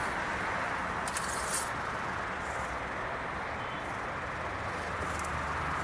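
Steady outdoor background hiss with a few brief soft scrapes about a second in and again near the end, as the engine-oil dipstick is drawn from its tube and handled; the engine is not running.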